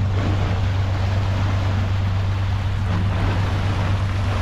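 Water pouring through one open sluice into a deep canal lock, churning as the chamber fills, a steady rushing with a constant low hum beneath it.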